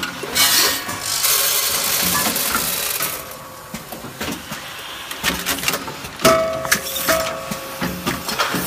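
Granule packing machine running with corn kernels: a rushing hiss for about three seconds, then clicking and clattering of its mechanism, with a short tone sounding twice about six to seven seconds in.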